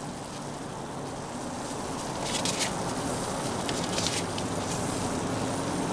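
Beef patties and bread sizzling steadily on a flat-top griddle, with paper crinkling briefly twice as cheese slices are peeled off their sheets.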